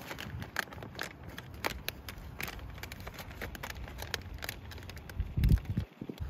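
Crinkling and rustling of a food pouch's packaging being handled and opened, with many small crackles. There is a brief low thump about five and a half seconds in.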